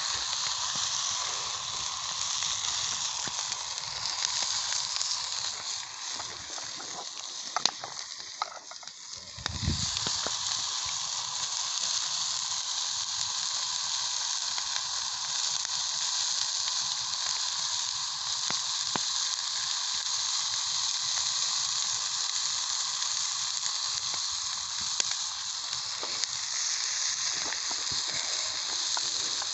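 Hamburger patties sizzling steadily in a frying pan over a wood fire, with a brief dip and a low thump about nine to ten seconds in.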